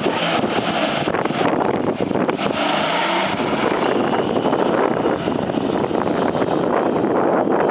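Toyota FJ40 Land Cruiser engine running as the vehicle pulls away from close by across mud, with heavy wind buffeting on the microphone.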